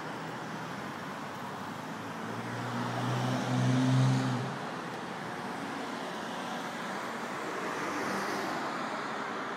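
City street traffic: steady road noise, with a vehicle's low engine hum swelling as it passes close by, loudest about four seconds in.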